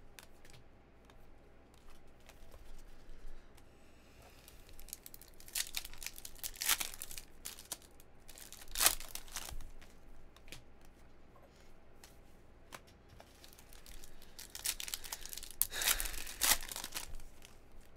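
Foil trading-card pack wrappers being torn open and crinkled by hand, in several short bursts of tearing and crinkling, the longest near the end.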